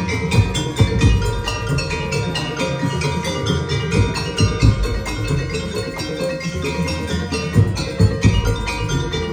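Ensemble music played at rehearsal: quick, steady strokes of metallic mallet percussion over sustained pitched tones, with drum hits.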